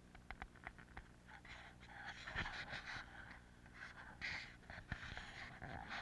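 Crows giving harsh alarm calls, scolding an intruder near their nest, over footsteps snapping and brushing through dry undergrowth. The calls come in several rough, noisy bursts in the second half.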